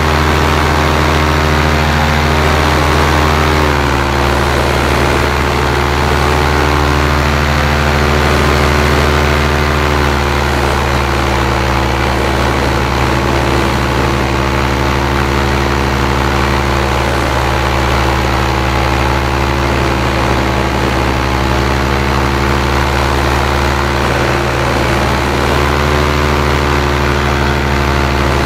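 Paramotor engine and propeller running steadily in flight, with the engine note dropping a little about four seconds in and coming back up near the end.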